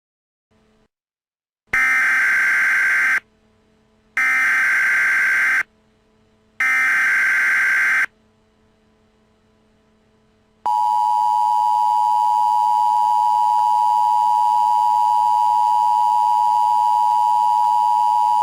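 Emergency Alert System SAME header: three bursts of digital data tones, each about a second and a half long and about a second apart. About two seconds after the third burst, the steady two-tone EAS attention signal starts and holds for about eight seconds.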